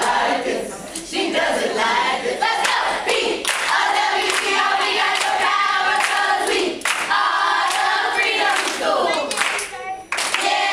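A group of children and adults singing a chant together in unison, with hand claps keeping a steady beat about twice a second.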